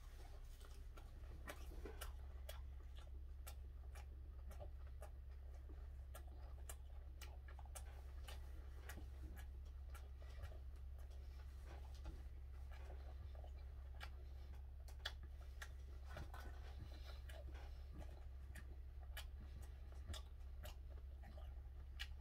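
A person chewing a mouthful of gwamegi (half-dried fish) wrapped in seaweed: faint, wet clicking mouth sounds scattered throughout, over a steady low hum.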